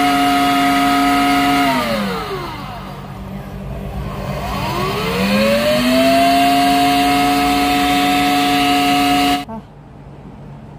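Countertop blender motor running at a steady high pitch. About two seconds in it winds down, then a few seconds later spins back up to speed and runs steadily until it cuts off suddenly near the end.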